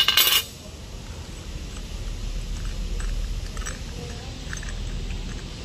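A short, loud rasp at the start, then light scattered metallic clicks as the metal blade-holder cup of a brush cutter is handled and fitted onto its gear head, over a low steady hum.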